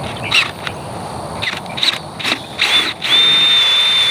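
Power drill boring into a steel pipe gate post: a few short bursts of drilling, then about three seconds in a steady, high-pitched squeal of the bit cutting through the metal.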